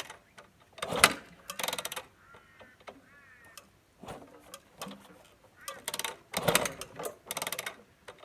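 Yamaha YZ250F four-stroke single being kicked over for a start: short bursts of rapid, evenly spaced pulses, two about a second in and two more around six to seven and a half seconds. A bird chirps briefly between them.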